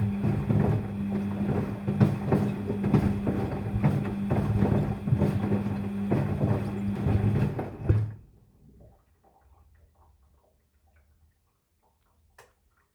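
Daewoo DWD-FT10013 washing machine turning its drum in the rinse cycle: a steady motor hum with water sloshing and laundry knocking about. The drum stops about eight seconds in, a few faint splashes die away, and a single click comes near the end.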